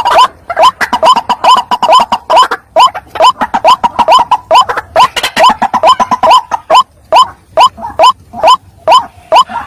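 White-breasted waterhen calling: a loud, rapid run of short rising notes, about three a second. Several calls overlap densely for the first six seconds or so, then thin to a single steady series, over a low hum.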